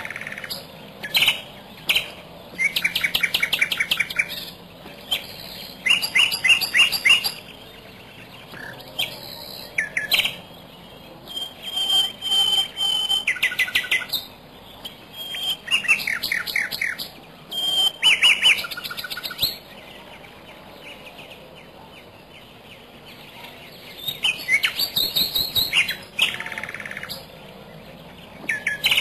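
Birds calling: bursts of rapid repeated chirping notes, each about a second long with pauses between, and a single held whistle near the middle.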